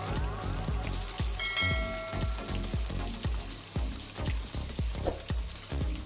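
Food sizzling in a hot pan, over background music with a steady beat.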